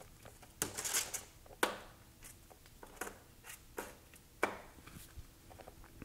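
Small plastic accessory bag crinkling, with light taps and clicks of small items being laid out on a tabletop: scattered short sounds, most of them less than a second apart.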